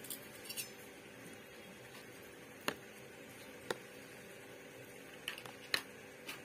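A metal spoon clicking and tapping against a plastic container as cooked rice is mixed with milk, a handful of sharp clicks spread out over a faint steady hum.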